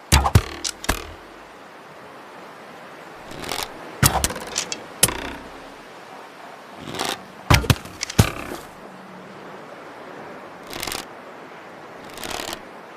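Bow and arrow sounds: several groups of sharp snaps and thwacks, with softer swishes in between.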